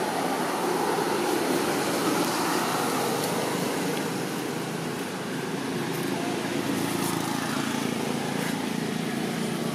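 Steady noise of road traffic, with a low engine hum coming in about six seconds in.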